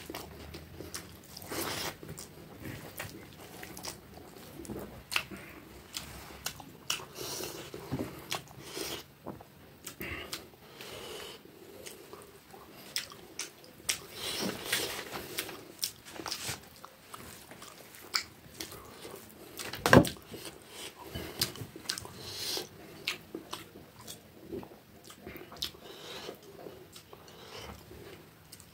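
Close-miked chewing and mouth sounds of a person eating rice and side dishes by hand, with many small crunches and clicks. One louder sharp click about two-thirds of the way through.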